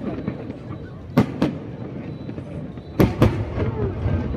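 Aerial firework shells bursting: two pairs of sharp bangs, about a second in and again about three seconds in.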